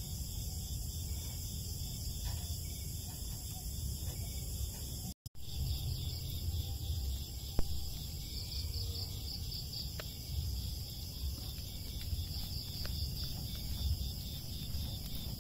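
Night insects, crickets, chirring steadily in a high pulsing chorus over a low background rumble, with a few faint clicks and one sharp click about halfway through.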